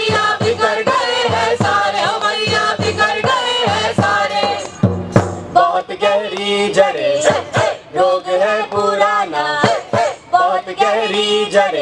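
A group of voices singing a protest song in chorus, with strokes on a hand-held frame drum keeping the beat.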